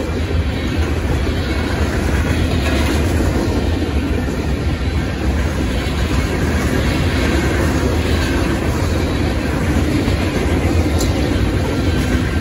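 Freight train of covered hoppers and tank cars rolling steadily past, steel wheels rumbling and clicking over the rail joints.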